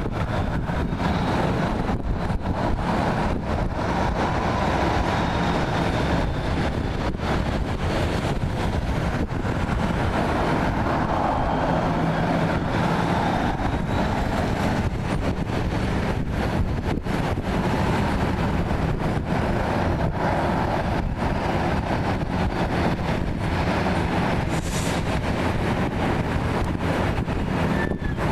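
Jet airliner engines at taxi power: a steady rush with a faint high whine, alongside wind on the microphone.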